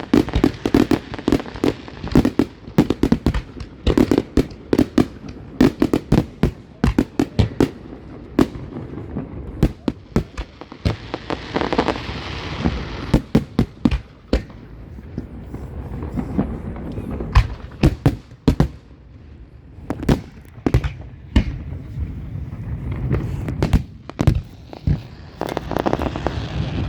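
Fireworks going off: a dense, irregular string of sharp bangs and pops, with two longer stretches of crackling haze, about halfway through and near the end.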